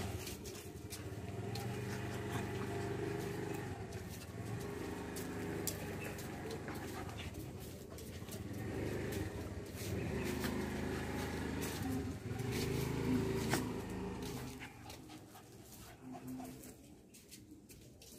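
Two puppies play-fighting, growling low in long bouts that die away near the end, with scuffling.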